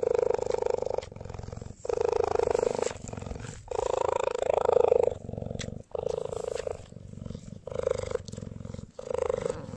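Domestic cat purring loudly close to the microphone. The rumble swells and eases with each breath in and out, about one breath every one and a half to two seconds.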